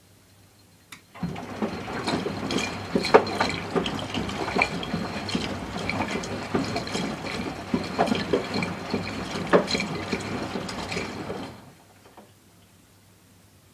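Miele W 435 front-loading washing machine's drum turning for a tumble of about ten seconds, water sloshing and the wet pillow flopping and splashing inside, starting about a second in and stopping abruptly near the end.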